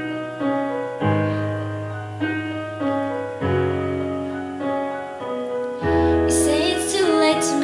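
Piano chords struck about once a second and left to ring, in a slow accompaniment. A singing voice comes in near the end.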